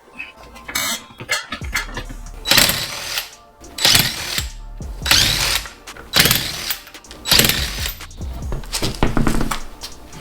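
Power tool, like an impact wrench, run in about six short rattling bursts roughly a second apart, with background music underneath.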